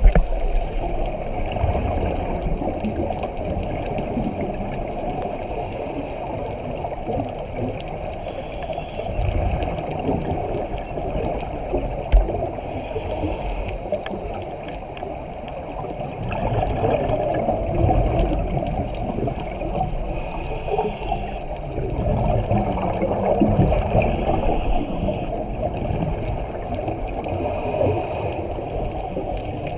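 Underwater sound of scuba diving: a steady muffled water rush with gurgling exhaled bubbles, and a brief hiss every few seconds from a diver's regulator as a breath is drawn.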